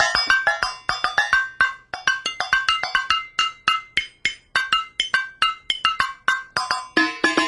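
Homemade can drums: tin cans of different sizes tapped with the blunt ends of pencils in a quick rhythmic pattern, about four or five hits a second. Each can rings briefly at its own pitch, so the pattern moves between several notes.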